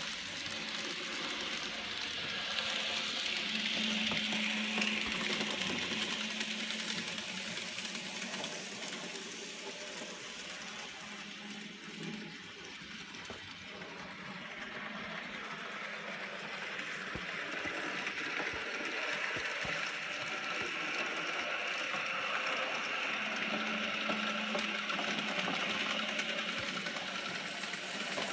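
N scale model train running along the track: the steady whir of its small electric motor and wheels, louder about four seconds in and again near the end, softer in between.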